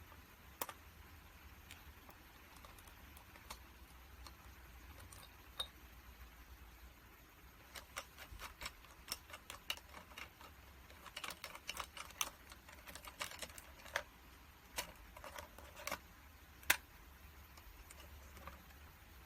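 Scattered small plastic clicks and taps from handling an auto-darkening welding helmet while its battery is fitted. The clicks come sparsely at first, then in quicker clusters through the middle, with one sharper click near the end.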